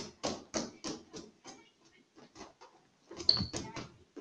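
A rubber punch balloon on an elastic band being batted repeatedly, quick hollow taps about three a second that slow and fade out about a second and a half in, then a few louder knocks near the end.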